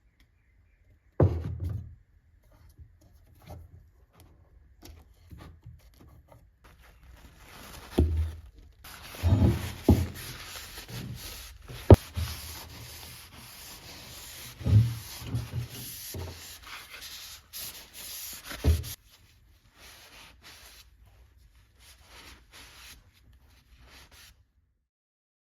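Hand rubbing or sanding strokes on a workpiece, with several dull knocks and one sharp click midway. The rubbing is steadiest from about eight to nineteen seconds in.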